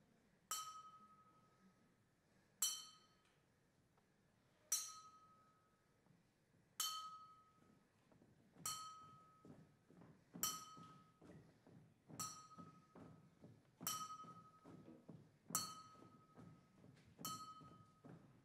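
A small bell-like chime is struck ten times, each strike ringing at one clear pitch and fading over about half a second. The strikes come about every two seconds and gradually quicken. From about halfway, soft low knocks and rustling sound between the strikes.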